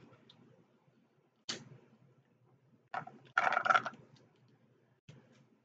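Eating sounds from hands and mouths working seafood: a few short clicks and smacks, with a brief crackly patch about three and a half seconds in.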